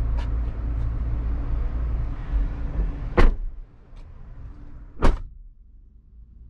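Two car doors slammed shut about two seconds apart, the second being the open front passenger door; before the first, a low steady rumble comes in through the open doors and drops away as they close.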